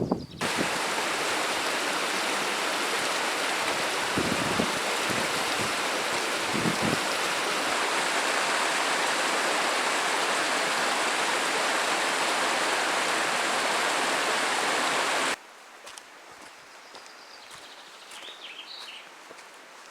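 Rushing water of a mountain stream, a steady loud hiss that cuts off suddenly about fifteen seconds in. After the cut, quiet outdoor ambience with a few faint high chirps near the end.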